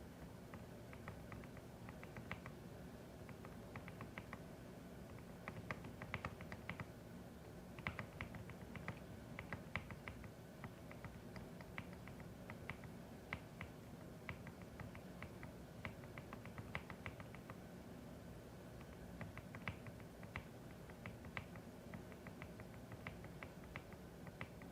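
Typing on a CIDOO ABM081 Stellar mechanical keyboard: faint, irregular runs of quick key clicks with short pauses between bursts, over a low steady hum.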